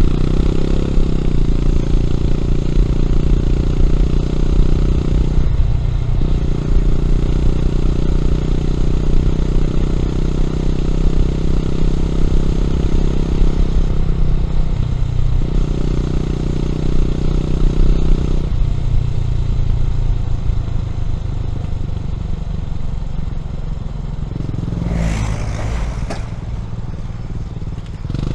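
Honda CB400SS single-cylinder engine running through a Yamamoto aftermarket exhaust while riding under load, with short breaks in its note about 5 and 14 seconds in. After about 18 seconds the engine settles to a lower, quieter note, a brief whoosh passes about 25 seconds in, and the fuller note returns near the end.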